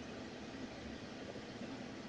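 Steady engine and road noise of a car driving, heard from inside its cabin, with a low, even hum.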